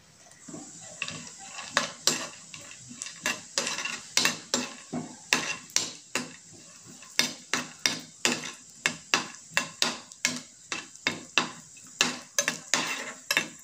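A metal spoon stirring and scraping cashew nuts around a nonstick frying pan as they roast in ghee. It clinks and scrapes against the pan about two to three times a second, starting about half a second in.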